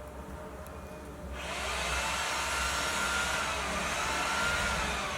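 A steady hiss of rushing air sets in about a second and a half in and holds, with faint thin whistling tones in it.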